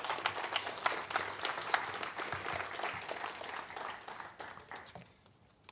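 Audience applauding, a dense patter of many hands clapping that thins out and dies away near the end.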